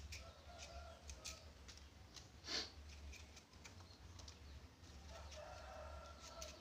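Faint, scattered taps of a knife on a cutting board as shallots are sliced, with chickens clucking in the background about half a second in and again near the end.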